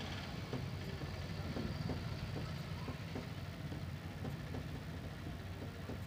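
Refrigerator's hermetic compressor running with a steady low hum, pumping air out through the open condenser line to flush burnt residue from the condenser. A few faint taps sound over it.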